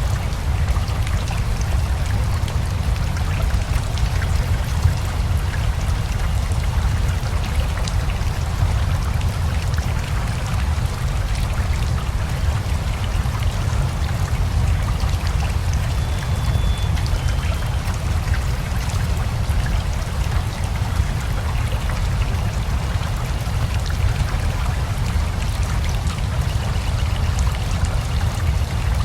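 Steady rain together with a rushing river: a continuous deep rush of flowing water with a fine patter of raindrops over it, even in level throughout.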